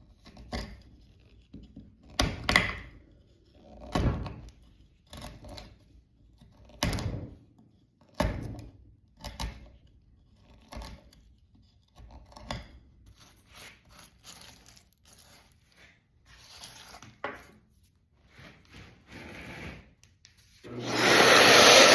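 Steel bent-neck chisel scraping and prying bark out of a knot in a black walnut slab, in short separate strokes a second or two apart. Near the end a Festool CT 36 E dust extractor switches on and runs with a loud, steady rushing.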